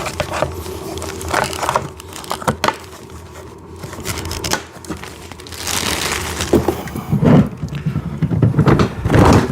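Plastic hubcaps being pressed onto the rear wheels of a kids' electric ride-on car: irregular scraping, clicking and knocking of plastic on plastic, with louder knocks in the last few seconds.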